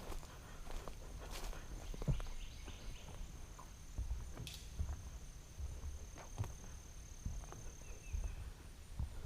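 A steady high-pitched insect drone that stops near the end, over scattered soft knocks and low rumbling handling noise.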